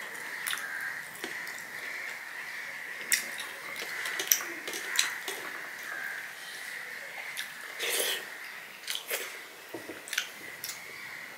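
A person eating rice and curry by hand from a steel plate: soft wet sounds of fingers mixing the rice, with scattered sharp wet clicks and smacks of eating at irregular intervals.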